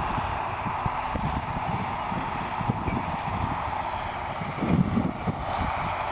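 John Deere 4430 tractor's six-cylinder turbo diesel running steadily under load while pulling a New Holland 851 round baler, with irregular low thumps underneath, louder about five seconds in.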